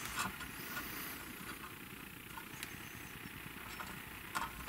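Cordless drill-driver running slowly as it drives the pickup's mounting screws into a Telecaster's metal bridge plate: a faint steady motor hum with a few light ticks, and a brief louder burst near the end.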